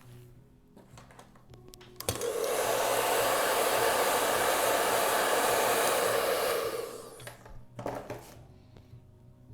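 Hair dryer switched on about two seconds in, blowing steadily for about five seconds to dry freshly applied paint, then switched off.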